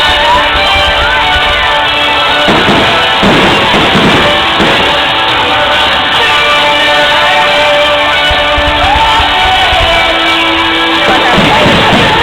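Loud music with sustained notes and a rock beat, at a steady level.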